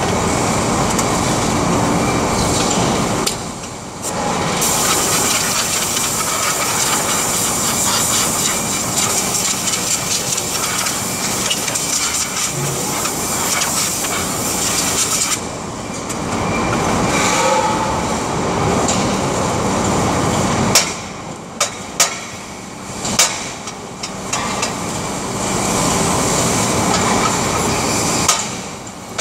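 Handheld pneumatic grinder running against a metal workpiece: a steady grinding noise with a faint high whine. It breaks off briefly about four seconds in, and again between about twenty-one and twenty-four seconds, when a few sharp metallic clanks sound.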